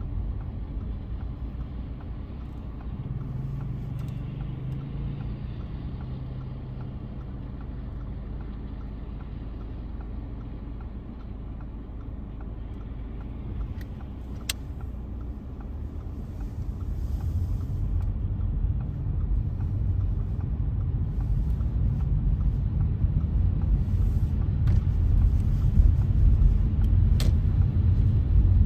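Car on the move: a steady low rumble of engine and tyres on a wet, slushy road, growing louder in the second half, with a couple of sharp clicks.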